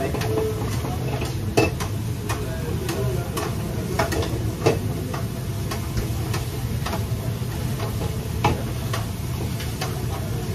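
Stir-frying in woks: metal spatulas and ladles scraping and clanking against the steel pans while food sizzles, over a steady low rumble. The clanks are irregular, with several sharp ones standing out.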